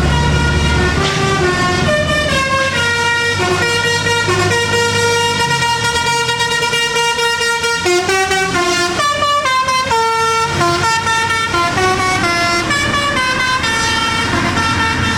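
A bus's 'telolet' multi-tone air horn playing a melody of stepped notes, some held for a second or two and others changing quickly, over the low rumble of the bus engine, which is heaviest in the first second.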